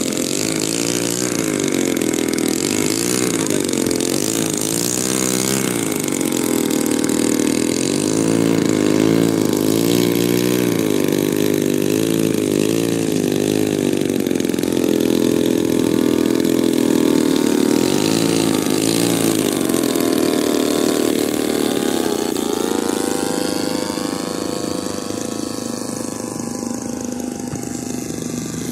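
Radio-controlled model airplane's engine running in flight, its pitch swelling and falling again every few seconds as the plane passes and changes throttle, with a long rising whine about three-quarters of the way through.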